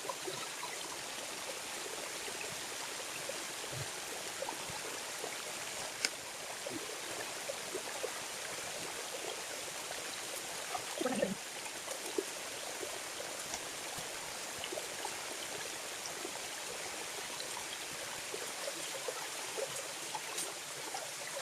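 Small waterfall splashing steadily into a shallow pool, an even rushing hiss. Small scattered ticks and knocks run over it, with a short louder sound about halfway through.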